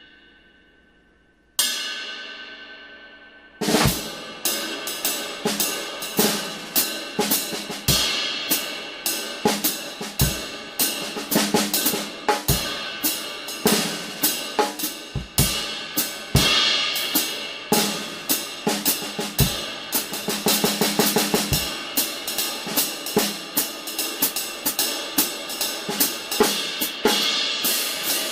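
A 22-inch Istanbul Mehmet 61st Anniversary ride cymbal, a jazz-voiced ride, is struck once and left to ring and fade, then struck again about a second and a half in. About three and a half seconds in, a drum kit groove starts, with the ride keeping time over snare and bass drum hits.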